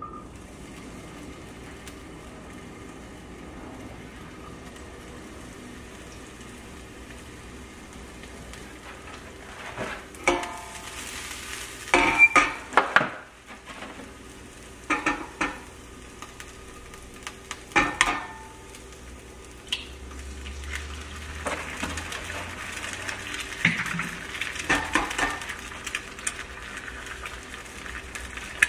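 Diced bell pepper and onion sizzling in olive oil in a nonstick frying pan. About ten seconds in, several sharp knocks and clinks come as utensils and eggs are handled. The sizzling grows louder over the last several seconds as eggs go into the hot pan.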